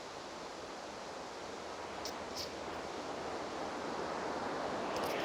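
Heavy rain pouring on the biome's roof, heard from inside as a steady rushing hiss that grows louder.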